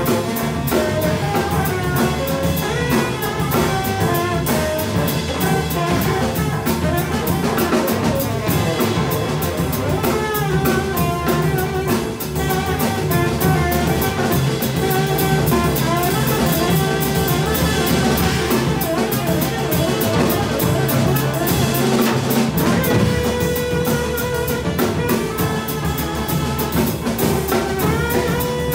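Live jazz quartet playing: a saxophone carries the melody over piano, double bass and a drum kit with constant cymbal work.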